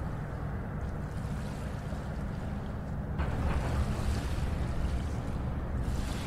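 Steady low rumble of a distant freight train of tank cars rolling across a long trestle, growing a little louder about halfway through.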